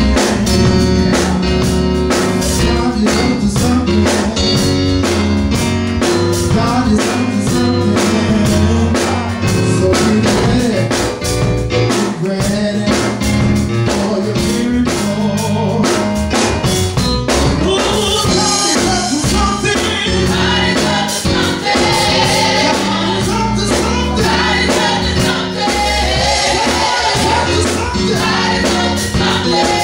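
Live gospel music from a church praise team: lead and backing voices singing into microphones over a band with a steady percussive beat. The voices come in fuller and brighter about eighteen seconds in.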